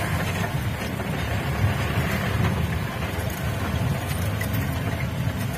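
Off-road vehicle's engine running with a steady low rumble while it drives along a rough dirt track, heard from inside the cabin.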